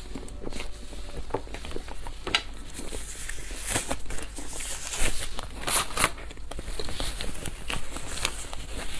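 Thin disposable plastic gloves crinkling and crackling as they are pulled off and scrunched into a ball, the loudest rustles in the middle, then softer paper-tissue rustling near the end.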